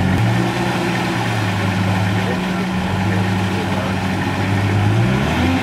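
The engine of a Toyota Land Cruiser 60-series 4x4 runs at low revs while it sits in deep mud, steady with small shifts in pitch, then rises near the end as throttle is added.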